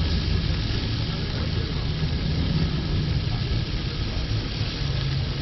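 Pork belly sizzling on a charcoal grill as it is brushed with sauce, a steady hiss over an even low rumble.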